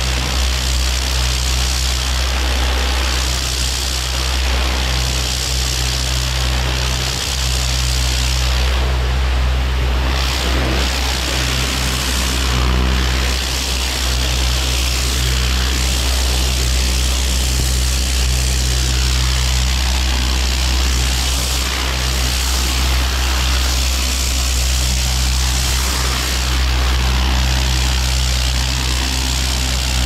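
Pressure washer running steadily: an even engine drone under the hiss of the high-pressure water jet spraying onto brick pavers.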